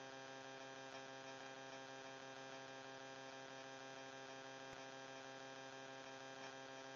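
Faint, steady electrical hum made of many evenly spaced tones, with nothing else audible.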